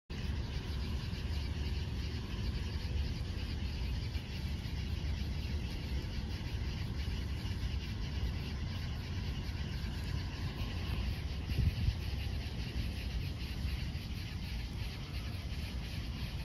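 Steady chorus of night insects trilling over a low rumble.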